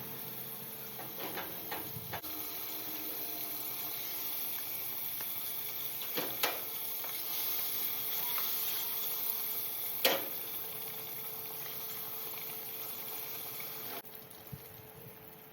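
Chicken pieces frying in hot oil, a steady sizzle, with a few sharp clicks and taps, the loudest about ten seconds in. The sizzle drops off suddenly near the end.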